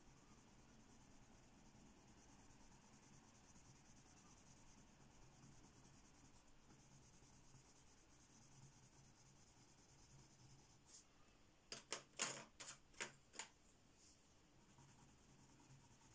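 Coloured pencil being worked on thin photocopy paper, mostly very faint, with a quick run of about six short scratchy strokes a little after the middle.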